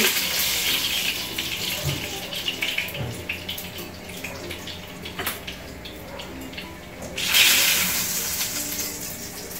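Pieces of hen frying in hot oil in a frying pan, a steady sizzle with a few sharp clicks of a metal fork against the pan. About seven seconds in the sizzle flares up louder for a moment as a piece is moved in the oil.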